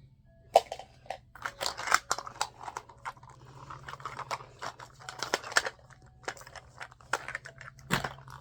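Plastic wrapping of a Mini Brands toy capsule crinkling and tearing as it is opened by hand, in irregular crackles and clicks.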